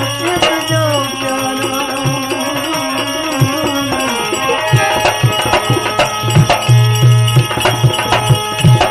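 Devotional bhajan music between sung lines. A melody line bends and slides in pitch for the first half, then hand-drum strokes in a steady rhythm take over.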